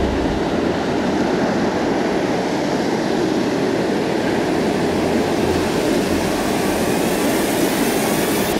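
Wind blowing across the camera microphone: a steady rushing noise with uneven low rumbles from gusts.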